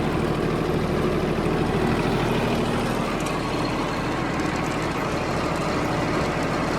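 John Deere 4110 compact tractor's three-cylinder diesel engine running steadily.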